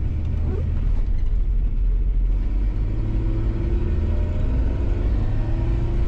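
1994 Ford Explorer's 4.0-litre V6 engine running under load as the truck drives through snow, a steady low rumble with the engine note rising slowly over the last few seconds.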